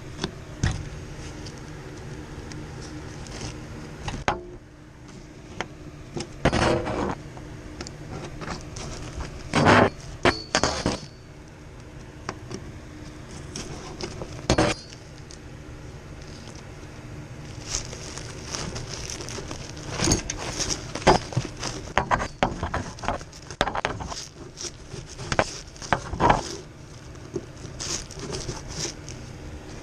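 Irregular metal clanks, knocks and clinks from handling the sheet-metal cabinet and parts of an air handler during an evaporator coil replacement, over a steady low hum.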